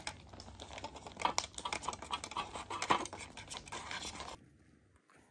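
Kittens eating from aluminium foil trays: a dense run of small clicks, scratches and rattles from licking, chewing and the foil trays. It cuts off suddenly about four seconds in.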